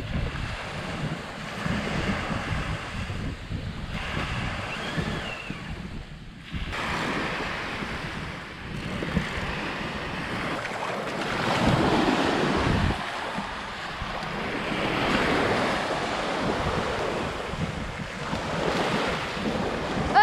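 Surf breaking and washing up the beach, the wash swelling and easing in waves, with wind buffeting the microphone.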